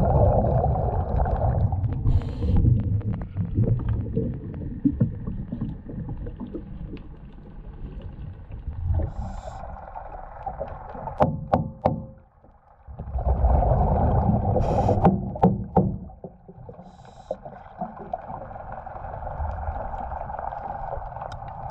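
Muffled underwater water noise picked up by a camera in a waterproof housing beside a sailboat's hull: a steady rushing with low rumble, broken by a few sharp clicks and knocks, and dropping away briefly about twelve seconds in.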